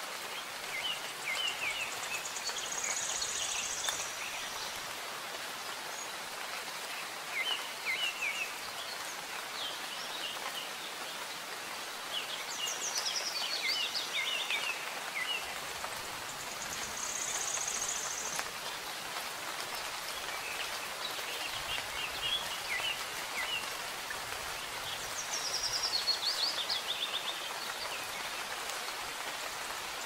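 Steady soft rain hiss with small songbirds chirping over it in quick chirps and short descending trills. The same bird phrases come back about every fourteen seconds.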